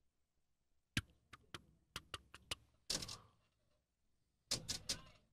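A series of sharp clicks and knocks: about seven quick ones, then a brief rustling burst, then a tight cluster of three louder knocks near the end.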